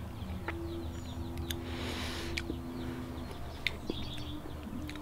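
Quiet outdoor background: faint bird chirps over a steady low hum, with a held low tone for a few seconds and a few soft clicks.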